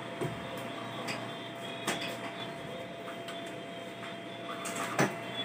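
A few sharp knocks and clicks from hand tools being handled and set down, the loudest about five seconds in, over a steady background hum.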